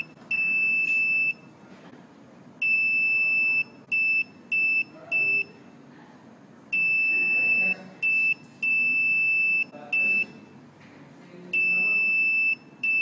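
Electronic buzzer on a Nuvoton NUC140 microcontroller learning board beeping Morse code in one steady high-pitched tone, with dashes about a second long and short dots. It sounds the dash that ends A, then B (dash-dot-dot-dot), C (dash-dot-dash-dot), and near the end the start of D (dash-dot).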